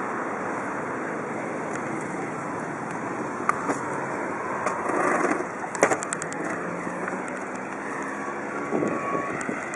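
Harsh wind noise on a bicycle-mounted compact camera's microphone while riding, with faint street traffic behind it. A few sharp clicks come through, most of them in a quick cluster about six seconds in.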